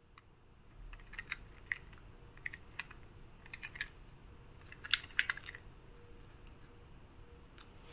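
Faint, light clicks and taps of a small plastic toy tank truck being handled and turned over in the hands, coming in small scattered clusters.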